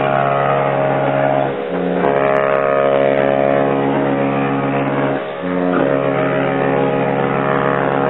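Cruise ships' horns sounding together in long, deep, overlapping blasts that form a held chord. Some blasts stop and others start about a second and a half in and again about five seconds in.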